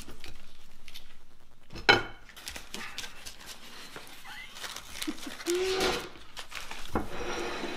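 Handling of a chicken sandwich and its paper wrapper on a table, with a sharp knock about two seconds in. Just before six seconds there is a brief low hum like a voice.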